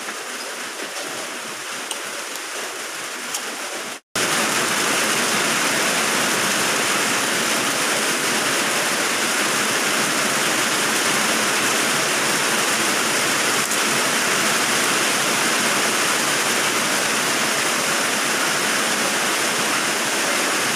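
Steady rushing noise, like running water or rain. It cuts out for an instant about four seconds in and comes back louder.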